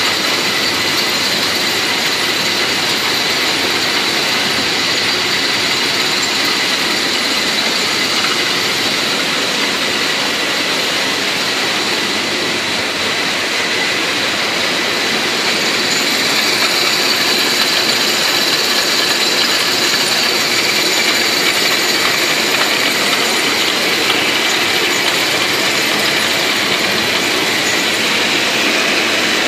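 Hop-picking machine running: a steady, loud mechanical din with constant high whining tones over it, growing a little louder about halfway through.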